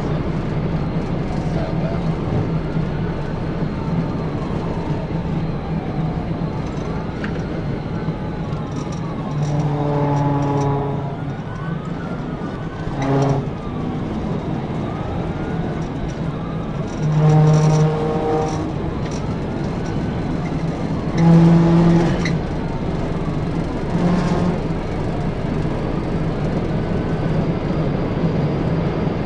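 Police cruiser siren wailing, rising and falling about every two seconds, over steady engine and road noise at high speed. A horn sounds five times, some blasts long and some short.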